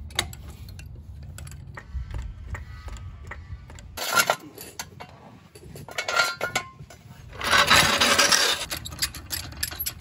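Lug nuts and a speed-handle socket wrench clicking and clinking as a wheel is bolted back onto the hub. About seven and a half seconds in, a louder rattle lasts a little over a second.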